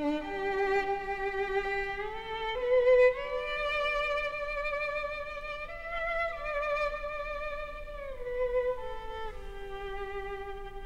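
Solo violin playing a slow melody of long held notes with vibrato, rising step by step over the first several seconds and falling back toward the end; background score music.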